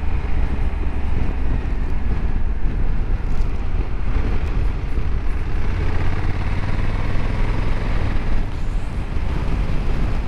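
Honda Africa Twin 1100's parallel-twin engine running steadily as the motorcycle is ridden along a road, over an even rush of road noise.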